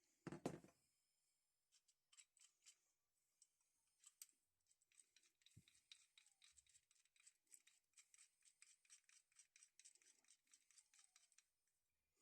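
Faint handling of a small metal adjustable wrench at the bench: one knock about half a second in, then a run of quick light clicks and rubbing scratches.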